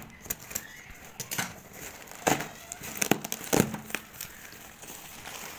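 Scissors snipping through the cloth wrapping of a parcel, then the cloth and the tape-wrapped package inside rustling and crinkling as they are pulled apart, with a few louder handling noises near the middle.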